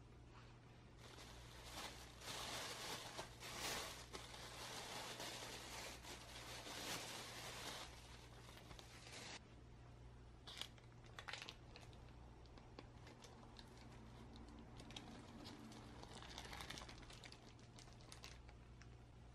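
Thin plastic bag crinkling steadily as it is pulled off a sponge cake, stopping abruptly about nine seconds in. Then the baking-paper lining crackles in short bouts as it is peeled away from the cake's side.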